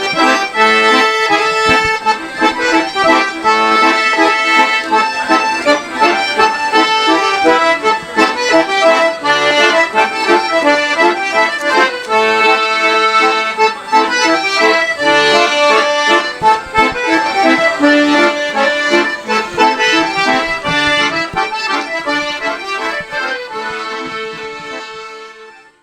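Accordion music, a tune with chords in a steady rhythm, fading out near the end.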